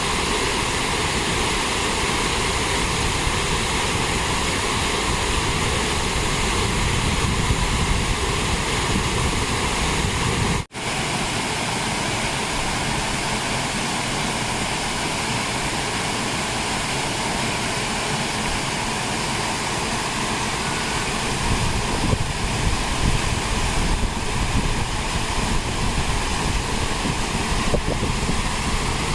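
Waterfall's rushing water, a loud, steady, even noise that cuts out for an instant about a third of the way through.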